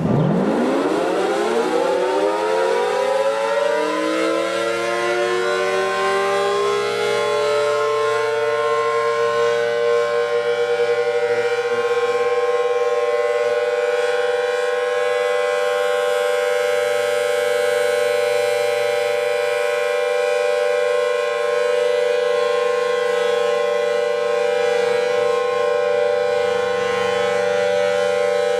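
Emergency alarm siren winding up from a low pitch over about six seconds, then holding a steady, loud wail made of several tones sounding together.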